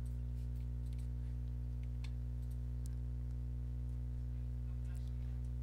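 Steady low electrical hum with a stack of overtones, unchanging throughout, with a few faint clicks, two of them about two and three seconds in.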